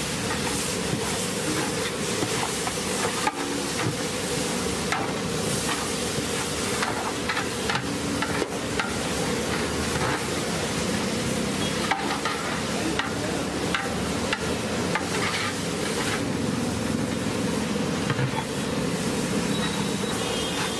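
Sizzling in a large aluminium cooking pot of fried onions and spice paste, with frequent short knocks and scrapes of a long-handled metal ladle stirring against the pot.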